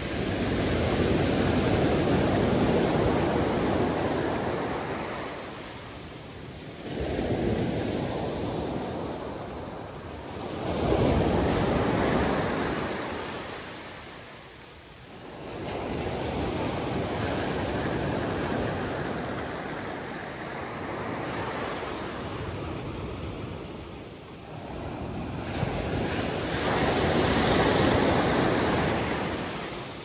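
Sea waves washing in and drawing back, the noise rising and falling in about five slow swells, each a few seconds long.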